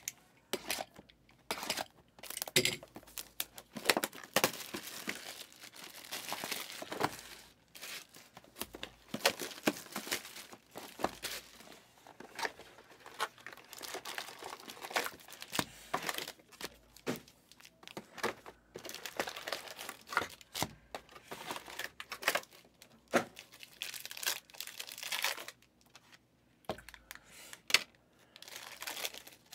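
Sealed trading-card boxes being opened by hand: plastic wrapping and foil card packs tearing, crinkling and rustling in irregular spurts, with short crackles and light taps.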